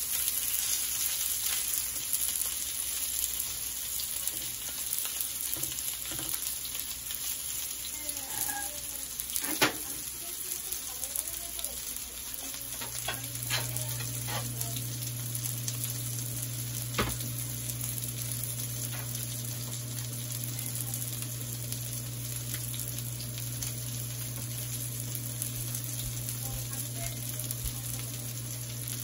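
Chicken kabab patties sizzling steadily as they shallow-fry in oil in a frying pan, with a few sharp knocks scattered through.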